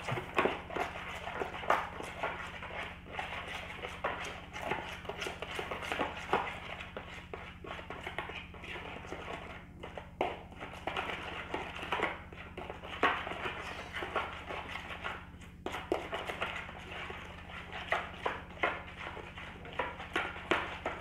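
Metal spoon beating eggs and ground seasoning in a plastic bowl: quick, uneven clacking and scraping against the bowl, with short pauses about ten and fifteen seconds in.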